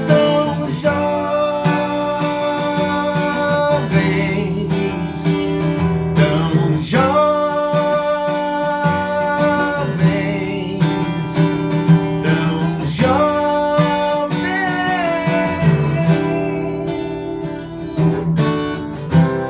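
Yamaha FG-150J steel-string acoustic guitar strummed steadily through a chord progression, with the chords changing every second or two.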